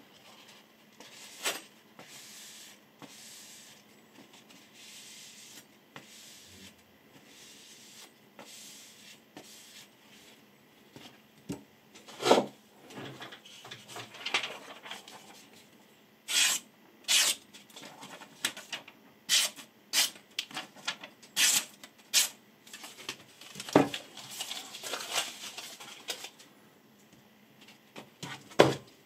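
Hands working with sharpening gear and a cloth on a tabletop. Soft rubbing comes first, then from about midway a run of sharp taps and clicks as things are handled and set down, with a heavier knock a little before the end and another right at the end.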